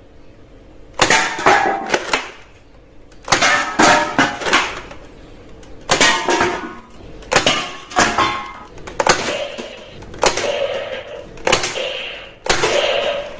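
Toy dart blaster firing shot after shot in clusters of sharp clicks and pops, with drink cans and small plastic targets clattering as the darts knock them over.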